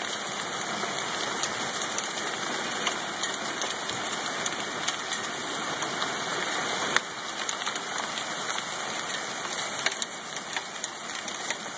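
Hail falling hard: a dense steady hiss with many sharp ticks of hailstones striking the ground and railings, a little quieter after about seven seconds.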